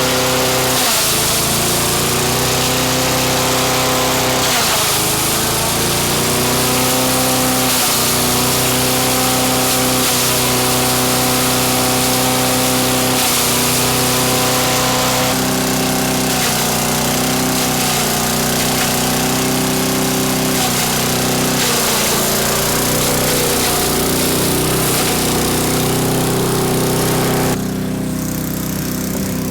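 Craftsman wood chipper-shredder's small gas engine running hard while herring is shredded into chum, its pitch sagging briefly a few times under load. Near the end the shredding noise drops away and the engine runs on more quietly.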